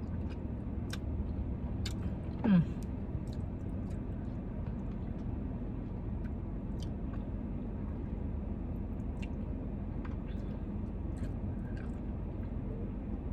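A person chewing a mouthful of stewed chicken and rice close to the microphone, with small scattered mouth and utensil clicks and a brief hum falling in pitch about two and a half seconds in. A steady low hum runs underneath.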